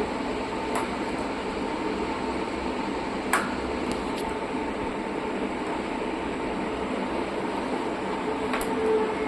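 A steady mechanical hum with a few faint steady tones in it, broken by a handful of sharp clicks or taps, the loudest about three and a half seconds in.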